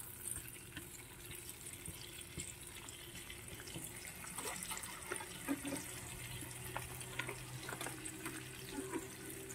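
Thin slices of Serrano ham frying in a little oil in a nonstick pan: a soft, steady sizzle with scattered small pops and crackles.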